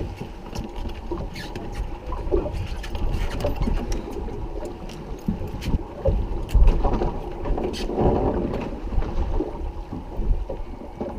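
Wind on the microphone and the steady rumble of a fishing boat at sea, with scattered clicks and knocks of tackle and gear.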